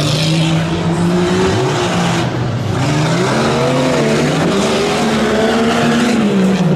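A competition 4x4 truck's engine revs hard, its pitch climbing and dropping several times as the driver works the throttle, over dirt and tire noise.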